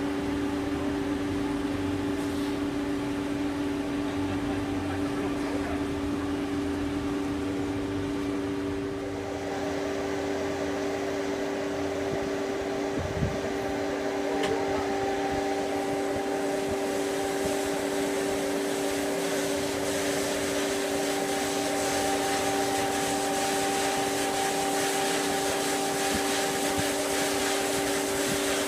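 Large block band saw (a log bandsaw) running, a steady machine hum with two constant low tones under a hiss. A thin higher tone joins about halfway through.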